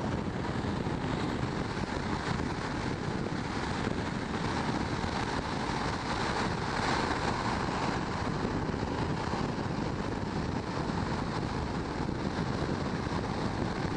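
Strong wind buffeting the microphone: a steady, rushing noise with no let-up.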